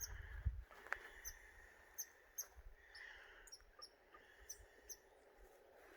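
Many faint, short, high chip calls of small birds at irregular intervals, over quiet outdoor background hiss.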